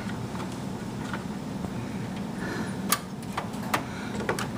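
A few scattered small clicks and taps as an AGP graphics card and its plastic retention lever are handled inside a computer case, the sharpest about three seconds in, over a steady low hum.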